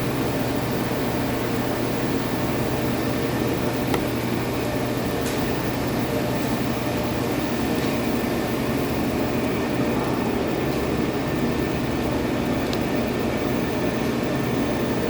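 Royal Master TG12x4 centerless grinder running under power: a steady hum from its 5 hp drive, spinning grinding and regulating wheels, hydraulics and coolant system, with a few faint ticks.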